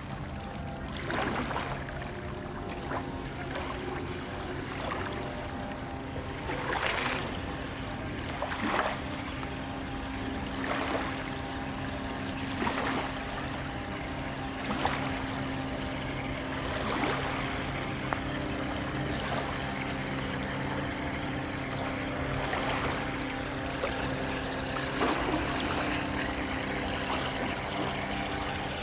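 Small waves slapping against the rocky shore about every two seconds, over a steady low hum from the electric motors of two radio-controlled Aska 6 mini fishing bait boats running across the water.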